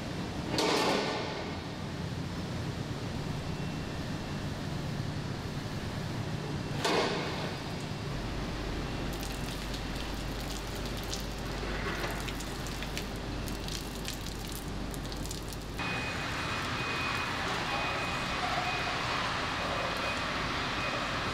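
Cheese-factory background noise: a steady machine hum and hiss with a few short clatters. About three quarters of the way in it turns to a louder hiss with a high beep repeating on and off.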